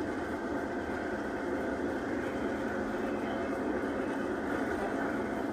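Steady running noise of a passenger train coach moving at speed, heard from inside the carriage at the window.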